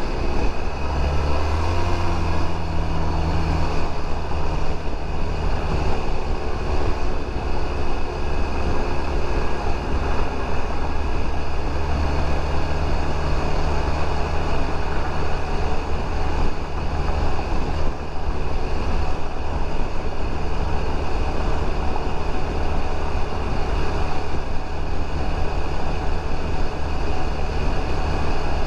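Steady engine drone and wind and road rush from a Suzuki Burgman 650 scooter cruising at road speed.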